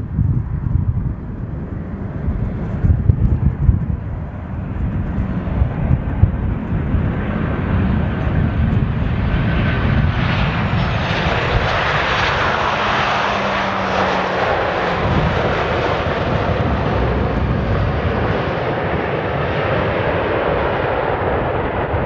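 Boeing 737-800 jet engines on landing. A low jet rumble with wind gusting on the microphone swells, about ten seconds in, into a broad, steady roar as the airliner passes at touchdown and rolls out along the runway.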